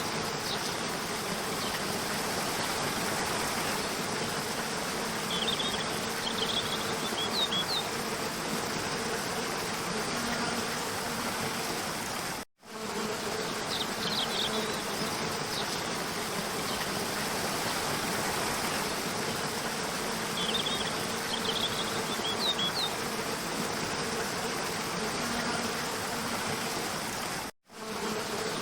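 Rushing stream splashing over rocks: a steady, even rush of water, with a few faint high chirps now and then. The sound cuts out for a moment twice, about halfway through and near the end, where the looped recording restarts.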